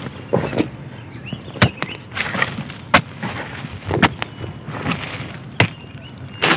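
Digging into dry, grassy soil at a burrow: about six irregular sharp knocks and crunches as the earth is broken open, with dry grass rustling between them.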